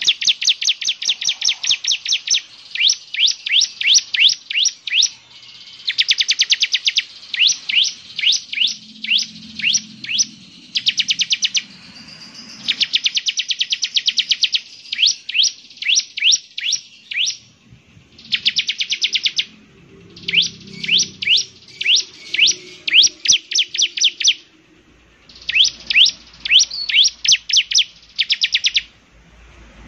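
Ciblek (bar-winged prinia) song: fast trains of short, high, upward-sweeping chirps, about eight to ten a second, delivered in bursts of one to two seconds with short pauses between them.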